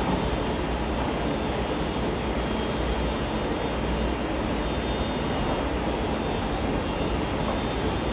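Steady, even background roar with a low hum underneath, like kitchen machinery running constantly.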